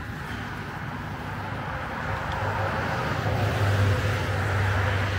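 A motor vehicle approaching, its engine hum and tyre noise growing louder through the second half.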